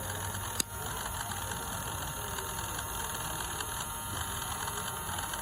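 Small DC electric motor of an RC car running steadily, with a single sharp click about half a second in.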